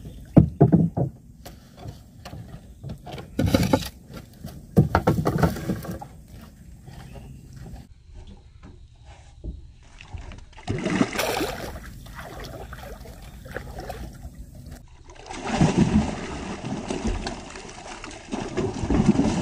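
Irregular water splashes and knocks from a small fishing boat, over a steady low rumble.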